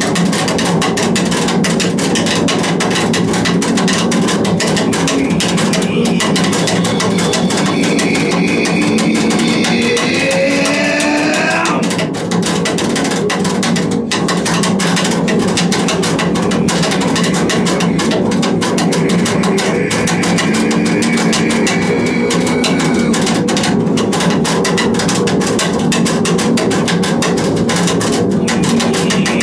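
Double bass bowed hard and continuously, producing a dense, scratchy texture with high overtones. Around the middle, a high pitched line slides down in steps.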